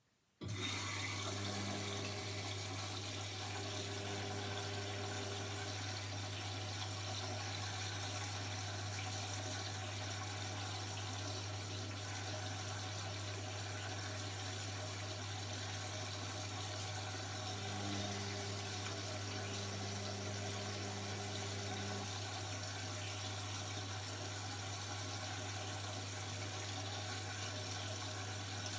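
Indesit 71252 washing machine cutting in after a silent pause: a steady rush of water with a strong low mains hum, starting suddenly about half a second in and running evenly.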